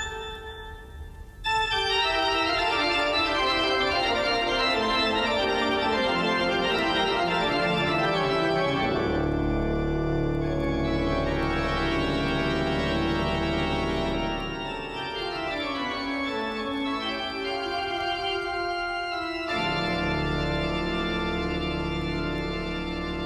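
Organ music playing slow, sustained chords. It swells in after a soft first second and a half, and deep bass notes come in about nine seconds in and again near the end.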